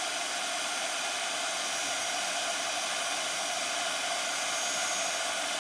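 Handheld heat gun running steadily: an even blowing hiss with a faint fan whine, held on a wood slice to heat wood-burning marker ink.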